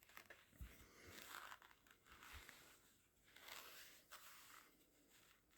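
Near silence, with a few faint, scattered rustles and small clicks of handling.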